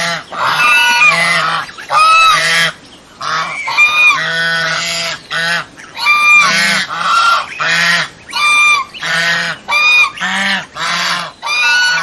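Domestic swan goose honking over and over, loud short nasal honks coming about two a second.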